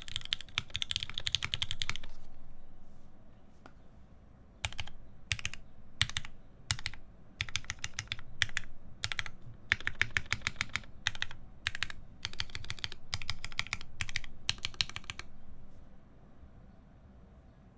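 Typing on a mechanical keyboard with lubed Cherry MX Black linear switches, an aluminium plate and GMK keycaps. A fast run of keystrokes comes first, then a pause of about two seconds, then short bursts of keystrokes that stop a couple of seconds before the end.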